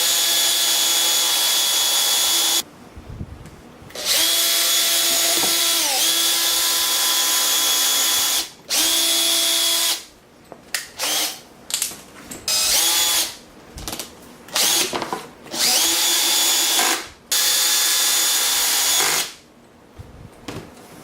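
Power drill driving screws into a wooden table saw sled: long runs of motor whine, the pitch sagging as a screw draws tight, then a string of short start-stop bursts to seat the screws.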